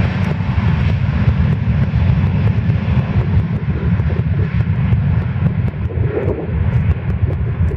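Airbus A380's four jet engines at takeoff power as the airliner accelerates along the runway: a loud, steady rumble with a broad roar above it.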